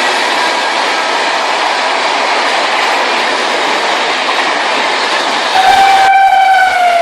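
Indian Railways train running with a steady rumble, then a train horn blasting from about five and a half seconds in; its pitch drops near the end as it carries on.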